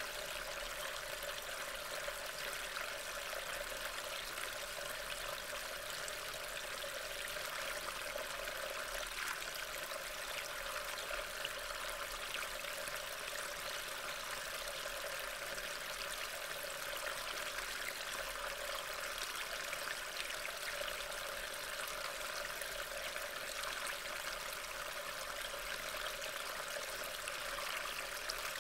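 Steady rain falling, heard as an even hiss through a trail camera's built-in microphone.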